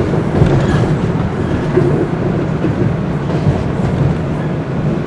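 Bombardier Toronto Rocket (TR) subway train running along the track, heard from inside the car: a steady low rumble of wheels and motors.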